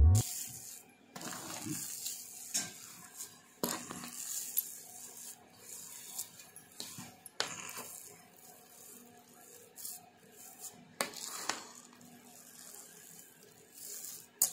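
Metal spatula scraping and knocking against a metal pan while stirring thick besan ladoo mixture, in irregular strokes.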